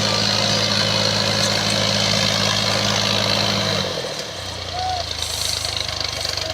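Combine harvester engine running steadily under a wide mechanical noise. About four seconds in, the engine note drops lower and the sound gets quieter.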